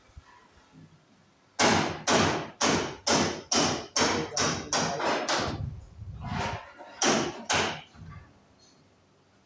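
A run of about a dozen sharp hammer blows, roughly two a second, each with a short ring after it. They start about a second and a half in and stop well before the end.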